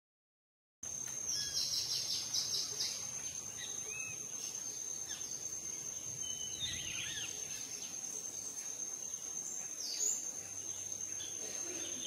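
Outdoor birdsong over a steady high-pitched insect trill, starting about a second in: a quick run of bird notes, then scattered chirps and short sliding calls.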